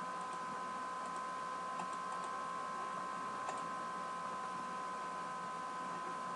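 Steady low hiss and a thin high electrical hum from the recording setup, with a few faint computer mouse clicks.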